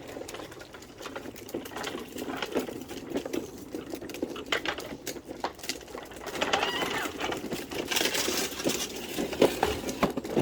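Small plastic wheels of a child's push cart rattling and clattering as it is pushed over rough ground, an uneven run of clicks that grows busier in the second half.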